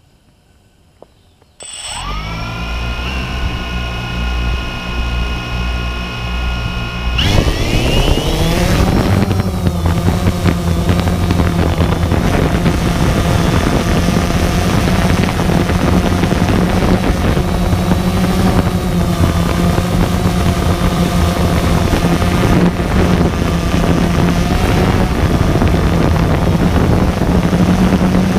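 DJI Phantom 2 quadcopter's four electric motors and propellers. They start up about two seconds in and spin at idle with a steady whine, then rise sharply in pitch about seven seconds in as the throttle comes up, and settle into a loud, steady hovering drone that wavers slightly in pitch.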